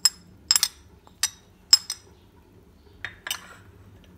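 Sharp, ringing ceramic and glass clinks: a small ceramic dish tapped to knock chopped coriander off it into a glass bowl. There are about six quick clinks in the first two seconds and two softer ones around three seconds in.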